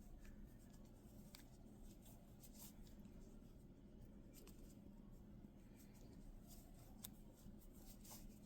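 Very faint, scattered soft ticks and rustles of yarn being worked with an 8 mm crochet hook while making increase stitches, over near silence.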